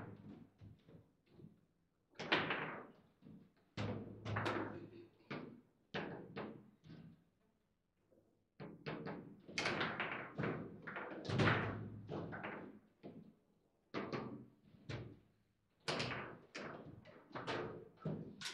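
Table football game in play: a rapid, irregular run of sharp knocks and clacks as the ball is struck by the rod figures and hits the table, with short pauses between flurries.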